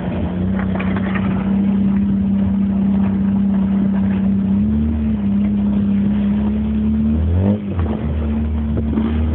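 Autocross car's engine running steadily under load at an even pitch, which rises a little about five seconds in, then dips and jumps again around seven and a half seconds as the revs change.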